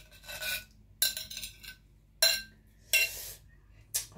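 Metal spoon scraping and clinking against a ceramic bowl as sauce is spooned out, in about five sharp strokes roughly a second apart.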